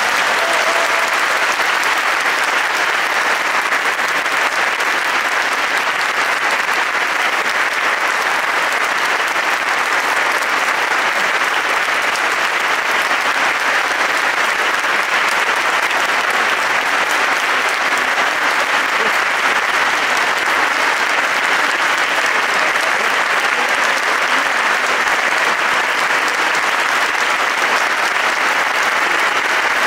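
Audience applauding steadily, a long, even round of clapping.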